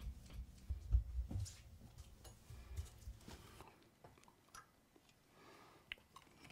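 Handling noise as a picture frame is picked up and moved: low thumps and several knocks in the first few seconds, then only a few faint clicks.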